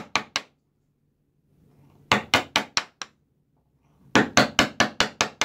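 Wooden mallet striking a carving chisel as it chops into a wooden block: quick runs of sharp knocks, about five a second. There are three runs, the last and longest near the end.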